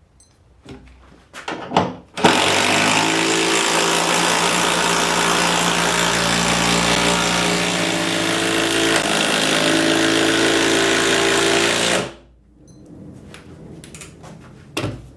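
Bosch 25618 18-volt cordless impact driver hammering a hex bolt into a wooden 2x8 for about ten seconds, then stopping abruptly. A few knocks of handling come just before it starts.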